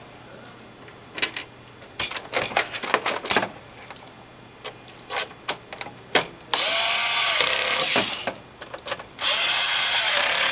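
Electric screwdriver driving screws into the monitor stand's mounting plate, running twice for about a second and a half each, about halfway in and again near the end. Before that come a few sharp clicks and knocks of parts being handled.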